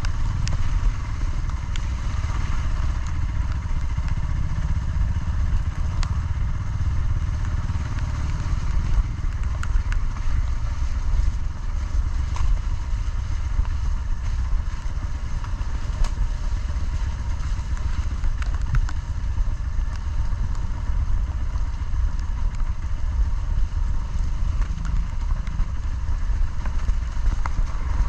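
Motorcycle engine running steadily while riding an off-road dirt trail, with scattered small clicks and knocks throughout.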